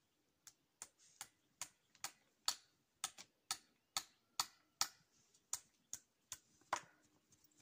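Hammer driving nails into a wooden post through plastic sheeting: a steady run of about seventeen faint, sharp strikes, two to three a second.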